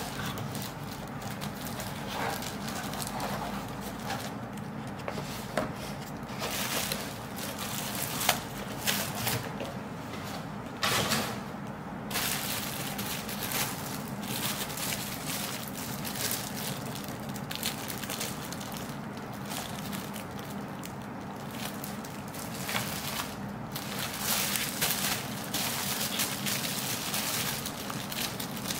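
Plastic packaging bag crinkling and rustling irregularly as it is handled, with a few sharper clicks among the rustles.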